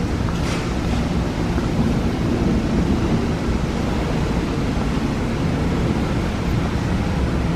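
Steady low rumbling noise, even throughout, with a faint brief sound about half a second in.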